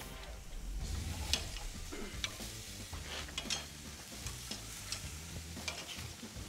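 Ground-meat burger patties sizzling over charcoal on a grill grate, with a few sharp metal clicks of tongs against the grate as the patties are turned.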